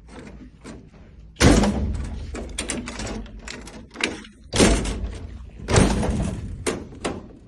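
Metal vending machine door shut three times, each a heavy thud that rattles off over about a second, with lighter clicks of the newly fitted lock and latch in between.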